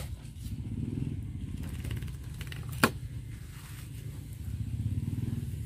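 A steady low rumble with one sharp click about three seconds in.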